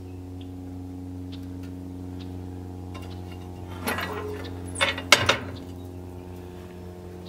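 Metal firebox door of a barrel-stove sap evaporator clanking as it is worked about four seconds in and shut a second later, under a steady low mechanical hum.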